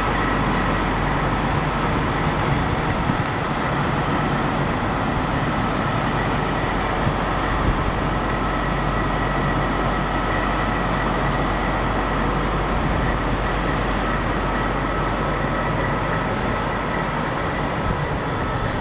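A vehicle engine idling steadily, with two constant high whining tones over a low rumble.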